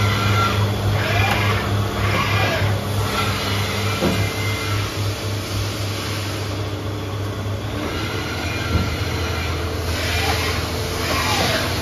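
Haas TL-25 CNC lathe running a program with no cutting: a steady electric motor hum with a low drone and a few steady higher tones, and several short rising and falling whines as the spindle changes speed. A few knocks come from the machine, one about four seconds in.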